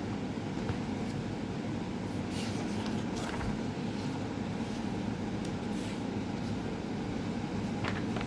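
Steady low background rumble with a few faint soft clicks or rustles.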